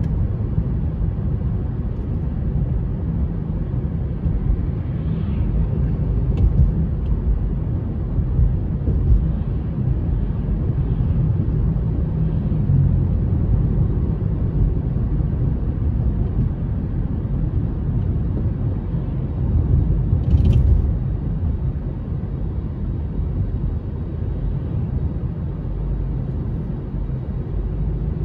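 Steady low road rumble inside a moving car's cabin: tyres and engine running at cruising speed. A brief click sounds about two-thirds of the way through.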